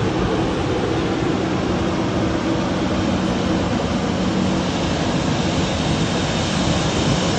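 Embraer 190 airliner's jet engines, a steady, even rush of noise with a constant low hum underneath.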